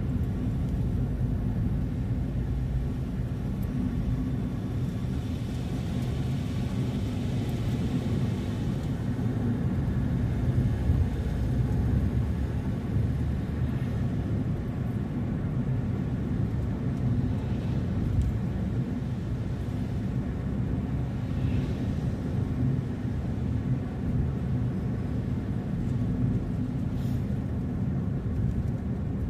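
Steady low rumble of a car driving along: engine and tyre road noise.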